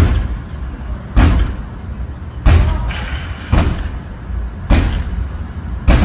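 A chair being slammed again and again against a door at its lock: six heavy blows, about one a second.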